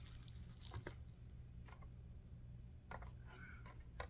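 Near silence: room tone with a steady low hum and a few faint ticks.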